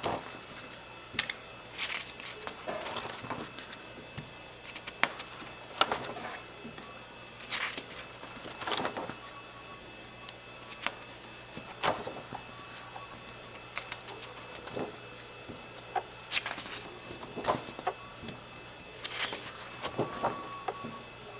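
Stiff stamp-album pages being turned in a three-ring binder: irregular paper swishes and rustles with sharp taps and clicks, one every second or two.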